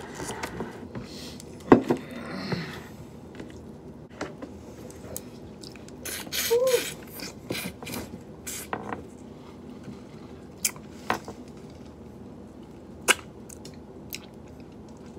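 Cooked shrimp and crab legs being peeled and cracked by hand: scattered sharp clicks and crackles of shell, with some chewing in between. The loudest crack comes nearly two seconds in, and there is a denser patch of crackling about six to seven seconds in.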